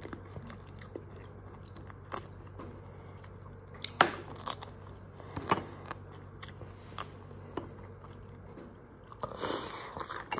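A person eating close to the microphone: chewing and biting, with scattered sharp clicks and crunches, the loudest about four seconds in and a cluster near the end, over a low steady hum.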